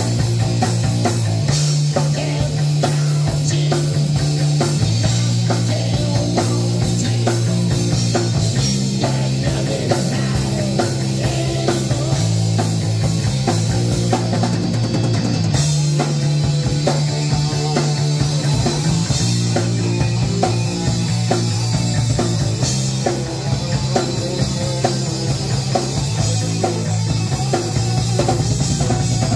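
Rock band playing live: electric guitar and bass guitar over a drum kit, the bass holding low notes that change every couple of seconds under a steady wash of cymbals.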